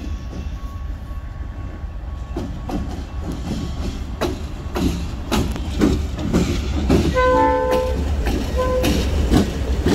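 Diesel freight train passing close by: a steady low engine rumble with sharp wheel clacks over the rails, louder from about four seconds in as the locomotives draw level. The locomotive horn sounds about seven seconds in for about a second, then briefly again near the end.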